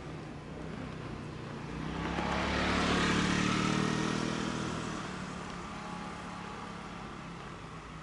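A motor vehicle passes by: its engine and road noise swell to a peak about three seconds in and fade away over the next couple of seconds, the engine note falling slightly as it goes past.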